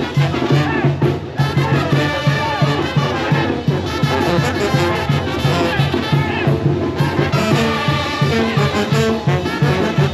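Brass band music, with trumpets and trombones over a steady, evenly repeating bass beat.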